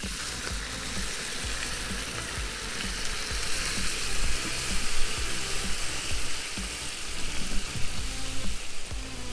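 Hot oil in a cast-iron kazan sizzling steadily as water is poured from a plastic bottle onto pan-fried pasta.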